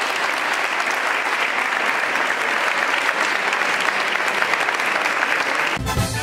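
A crowd of dancers clapping, a dense, steady applause. Near the end it cuts off suddenly and swing band music with brass starts.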